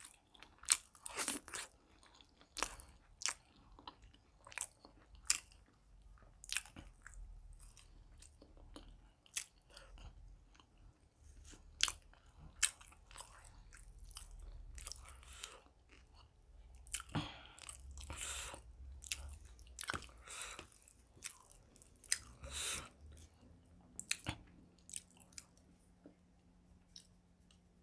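A man chewing and biting spiced chicken liver and gizzard curry with paratha, heard as irregular short clicking eating sounds.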